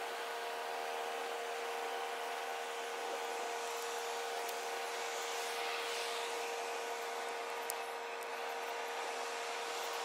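Ship machinery running steadily: a sustained hum with a steady whine and a hiss over it, the pitch raised by fourfold playback.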